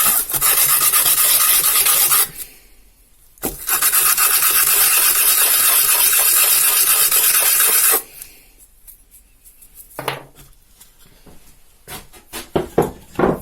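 Abrasive sanding of wood and glue off a ring core: a loud, even rasp for about two seconds, a short pause, then about four and a half seconds more. After it stops, a few light knocks and clicks of the piece being handled near the end.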